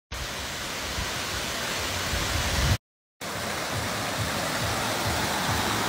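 Rushing water of a waterfall and a cascading stream pouring over rocks, a steady even roar heard in two takes, broken by a short gap of silence about three seconds in.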